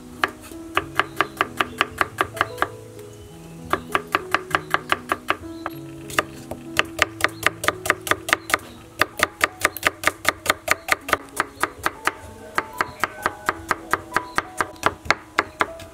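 Kitchen knife chopping garlic and shallots on a wooden cutting board, in quick runs of about six strokes a second with short pauses between runs. Background music plays underneath.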